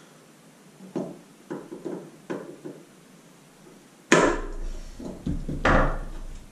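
Pliers working a steel wire end into a black plastic cog's hub: a few light clicks and taps, then two loud knocks with a dull thud about four and five and a half seconds in, the second as the pliers are set down on the table.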